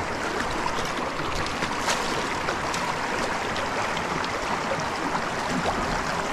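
Small rocky creek's water running steadily over stones, with a few light clicks, the sharpest about two seconds in.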